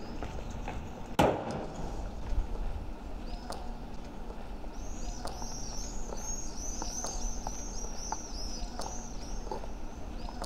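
A car door slams shut about a second in, then high heels click on a stone street. Birds chirp rapidly and repeatedly in a high pitch from about halfway through.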